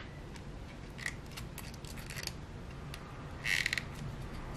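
Light handling noises from a small piece of leather being worked by hand: a few faint rustles and clicks, then a quick run of small clicks about three and a half seconds in.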